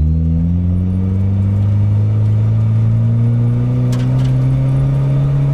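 Mazda Miata's four-cylinder engine heard from inside the cabin, pulling under light acceleration with a slow, steady rise in pitch as the revs climb from about 2,000 to about 3,500 rpm.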